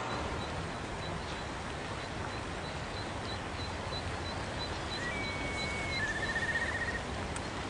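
Rural outdoor ambience: a steady hiss with faint high ticking about twice a second. About five seconds in, a bird gives a level whistled note followed by a short trill.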